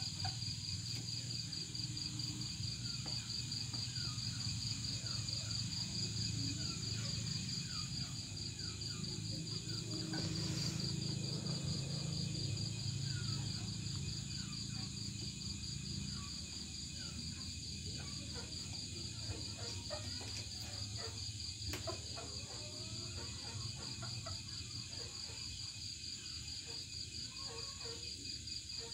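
Chorus of crickets and other insects: a steady, high, rapidly pulsing trill that goes on throughout, over a low rumble.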